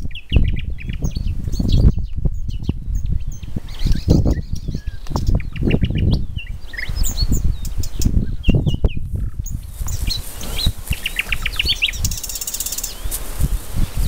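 A songbird singing in varied phrases of short, high notes, with a fast run of repeated notes and a buzzy rattle near the end. Strong, gusty wind buffets the microphone throughout and is the loudest sound.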